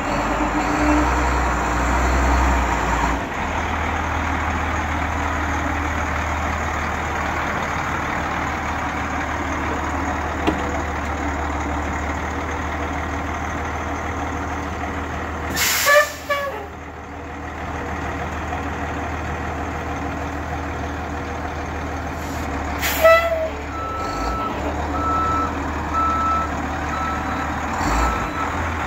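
Cummins ISC 8.3-litre inline-six turbo diesel of a Ford LNT8000 truck idling steadily. Two short air brake hisses come just past halfway and about three quarters in. Right after the second, the backup alarm starts a steady beeping as the truck is put in reverse.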